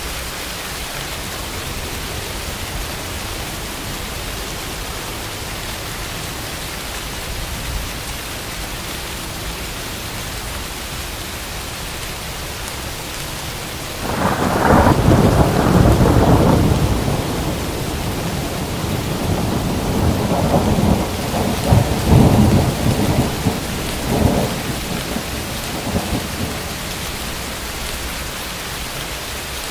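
Steady rain falling, with a peal of thunder breaking in suddenly about halfway through. The thunder is loudest for its first few seconds, then rolls on in several further swells before fading back under the rain.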